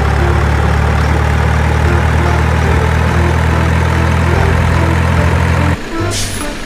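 Heavy truck engine idling steadily, cutting off suddenly near the end, followed by a brief hiss.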